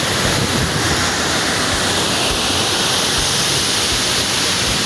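Waterfall: water falling onto water and rocks with a steady, loud rush.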